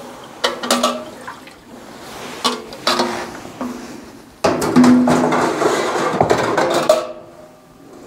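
Knocks and clicks as the refilled fuel tank of a Sunwind Corona RX2485 kerosene heater is handled and set into the heater, then about two and a half seconds of gurgling and rushing as kerosene runs from the seated tank into the heater's reservoir.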